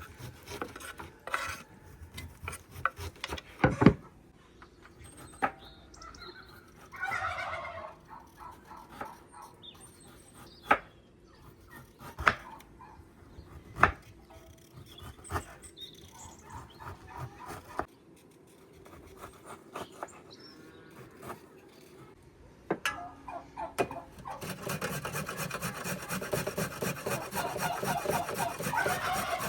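Scattered knocks and taps, then a steady rhythmic rasping scrape in the last five seconds.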